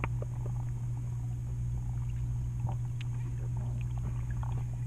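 Muffled underwater sound picked up by a submerged camera: a steady low hum with scattered small clicks and pops.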